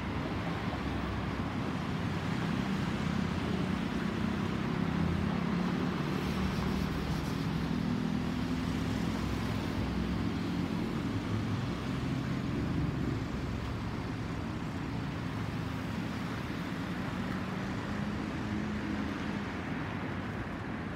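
Jet engine noise from an Airbus A320 (CFM56 engines) passing high overhead as it climbs out: a distant, steady roar with a low hum, swelling about five seconds in and then slowly fading.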